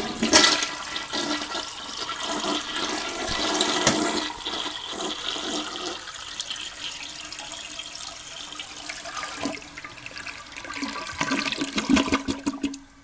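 A 1991 Norris toilet flushing: a sudden rush of water, loud turbulent swirling for about six seconds, then quieter swirling and gurgles, with a louder gurgling surge near the end before the sound drops off abruptly.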